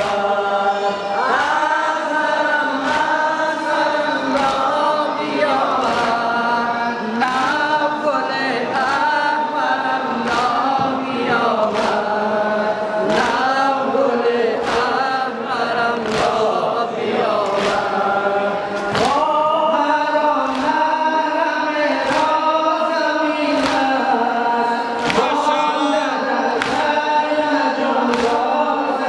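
Group of male voices chanting a Shia noha (mourning lament) in unison through a PA system, with the sharp, even strikes of the congregation's chest-beating (sina zani) about once a second keeping the beat.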